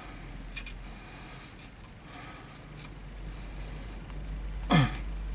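A small metal tool clicking and scraping lightly on the engine's plastic air-intake parts, over a steady low hum. Near the end comes one short, louder sound that slides down in pitch.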